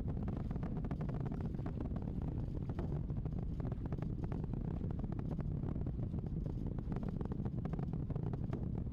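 Space Launch System rocket in ascent, its solid rocket boosters and RS-25 engines giving a steady low roar laced with rapid crackling.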